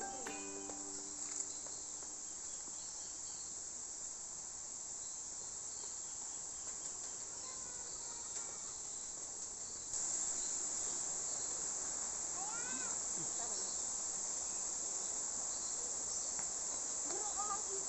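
Steady high-pitched chorus of insects, a continuous shrill chirring that grows louder about ten seconds in.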